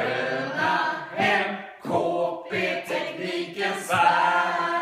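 A choir singing together in Swedish, several voices in sung phrases that break every second or so.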